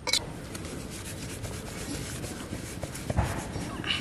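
A stainless steel plate of curry being handled: a short metal scrape at the start, then faint rubbing and light ticks, and near the end a dull bump and a scrape as hands take hold of the plate on the concrete floor.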